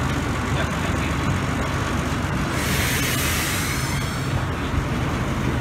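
Diesel engine of a Botchan train replica steam locomotive idling with a steady low hum. A loud hiss starts about two and a half seconds in and lasts about a second and a half.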